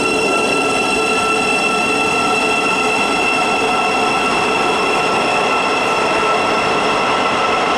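Train running at a steady speed, a constant high whine over the rumble of the running gear.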